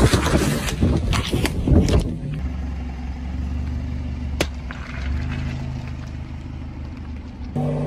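A car tyre crushes plastic tubs of water beads, with loud, dense cracking and crackling for about two seconds. Then the car's engine runs low and steady at idle as the tyre creeps over a water-bead-filled balloon, with one sharp snap about four and a half seconds in.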